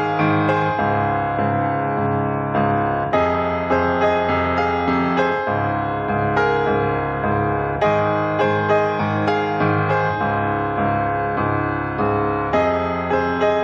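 Background music: a piano piece of notes struck at an even pace, with the chords changing about every two and a half seconds.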